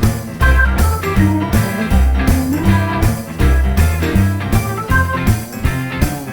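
Background music: a guitar-led rock or blues track with drums and a steady beat.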